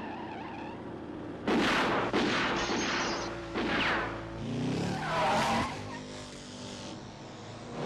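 Cars in a film car chase: engines revving and tyres skidding, with sudden loud tyre squeals about a second and a half, two seconds and three and a half seconds in, and another near the middle. Steady music plays underneath.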